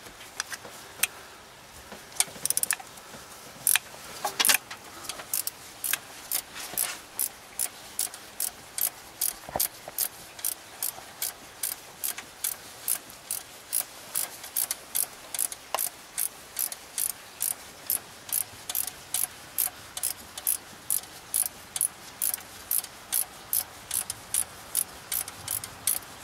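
Ratcheting wrench clicking as it backs out a long, already-loosened 12 mm coil pack bracket bolt. The clicks are scattered at first, then settle from about four seconds in into a steady rhythm of roughly two a second, one click for each return swing of the wrench.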